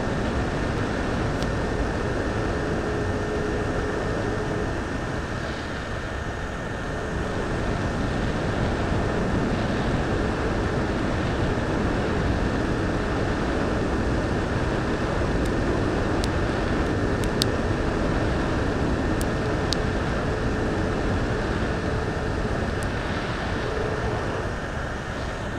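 Hot air rework gun blowing steadily on a phenolic resin-bonded PCB close to the microphone: a continuous rush of air with a faint fan whine. A few faint sharp clicks and pops, mostly in the second half, come from the board as its layers heat and delaminate.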